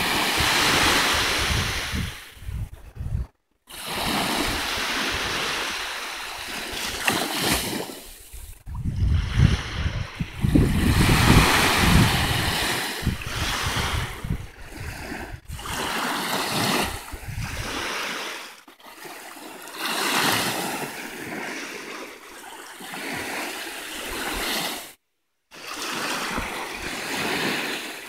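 Small freshwater lake waves breaking and washing up a sandy beach, the surf swelling and fading every couple of seconds. Wind rumbles on the microphone through the first half. The sound cuts out completely twice for a moment.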